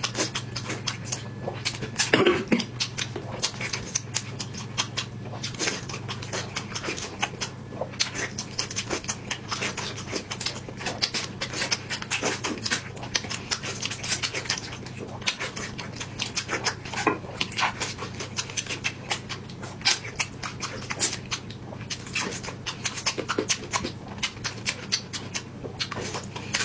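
Close-miked mouth sounds of someone chewing braised pork belly: dense, continuous wet smacking and chewing clicks, over a steady low hum.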